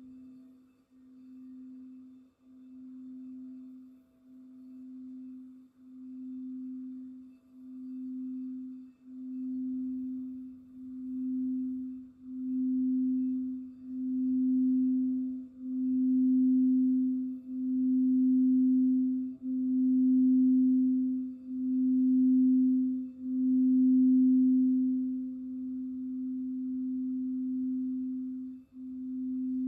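Crystal singing bowl sounding one sustained, steady tone that pulses about every two seconds and swells gradually louder, easing back briefly near the end.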